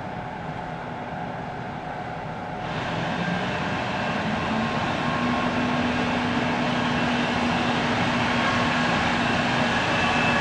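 Diesel shunting locomotive running and drawing nearer, with a steady engine drone. The sound jumps in level about three seconds in and then grows slowly louder.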